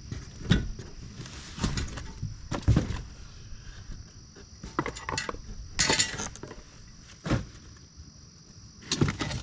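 Bagger kit parts being handled and lifted out of a cardboard box: scattered knocks, clinks and rustles of cardboard and wrapping, a few seconds apart. A steady high insect buzz runs underneath.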